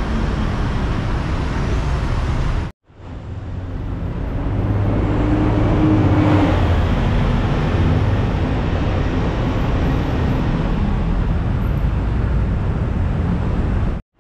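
Road traffic noise, with a motor vehicle's engine passing close about halfway through, growing louder and then fading. The sound drops out completely for a moment about three seconds in and again at the very end.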